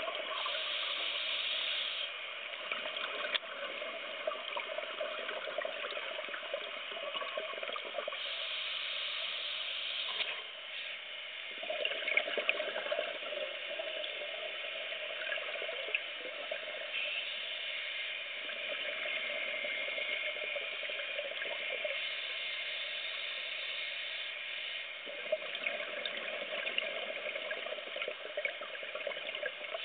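Underwater scuba breathing: a diver's regulator with bursts of exhaled bubbles every few seconds, over a steady rushing hiss with scattered clicks.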